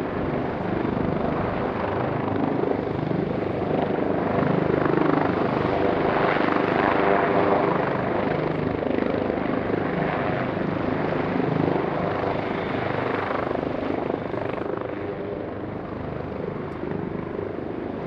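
Disaster-prevention helicopter's rotor beating steadily, growing louder about five to eight seconds in, then easing off toward the end.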